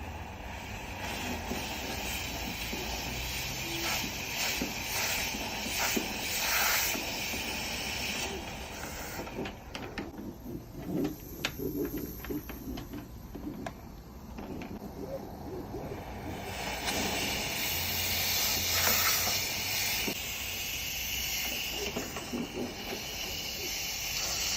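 Steady hissing rush of air from dryer-vent cleaning equipment working through a blocked vent line, with a run of clicks and knocks about halfway through and louder again near the end.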